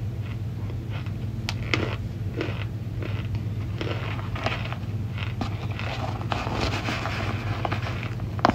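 A hand rummaging and crunching through a plastic tub of crumbly white cornstarch chunks: a dry crackle with many sharp clicks and snaps at irregular moments, over a steady low hum.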